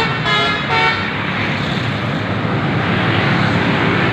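Sanjaya Trans bus's Basuri 'telolet' multi-tone air horn playing its last few short melodic notes, breaking off about a second in. A steady rumble of bus engine and traffic noise follows.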